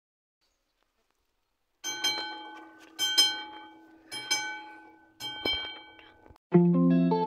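A bell struck four times at one pitch, roughly a second apart, each stroke ringing out and fading. Music starts near the end.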